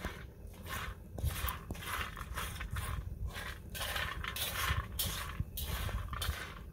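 Wire whisk scraping and tossing walnut pieces on a flat metal griddle as they dry-toast over a wood fire, in rhythmic scratchy strokes about twice a second, with a low rumble underneath.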